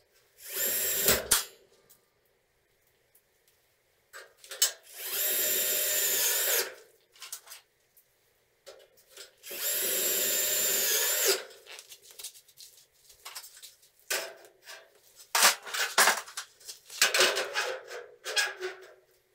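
Cordless drill-driver run in three short bursts driving screws into steel drywall profiles, the motor slowing just before it stops on the second and third. In the last few seconds, light clicks and knocks of the sheet-metal profiles being handled.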